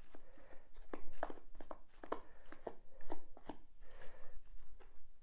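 Hands pressing and rubbing a freshly glued soft foam-rubber strip onto a rigid Styrodur foam block: an irregular run of short scuffs and clicks.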